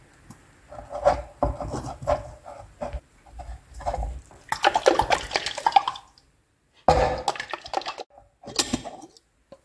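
Water or another liquid splashing and pouring in several irregular bursts, with short quiet gaps between them.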